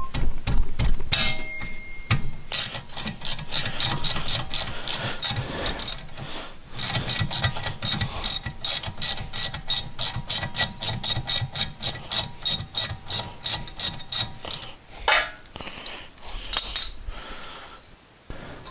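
Hand ratchet clicking in quick, even runs, about four clicks a second, as a caliper bolt is backed out of a rear brake caliper. There are two runs with a short pause between them, and a few knocks of the tool near the start and near the end.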